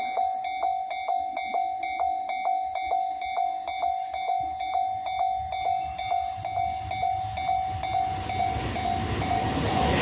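Japanese level-crossing warning bell ringing steadily, about two and a half dings a second, as a train approaches. The train's rumble grows louder over the last few seconds.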